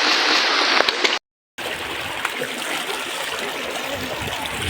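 Running water: a steady rush of noise that drops out to complete silence for a moment a little over a second in, then carries on more softly.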